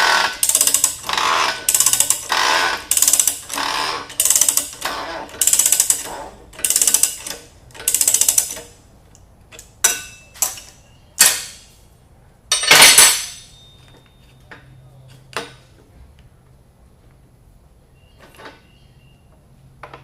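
Hand ratchet wrench working the coarse-threaded jacking nut of a water pump bearing puller, pressing the bearing out. Quick strokes come about one and a half times a second for the first nine seconds. A few separate clicks follow, then a louder clank about thirteen seconds in.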